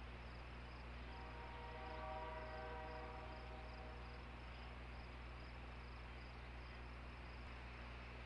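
Faint outdoor ambience from the nest camera's microphone: a steady low hum and hiss with a faint high pulsing about three times a second. About a second in, a distant drawn-out horn-like tone rises out of it and lasts about two and a half seconds.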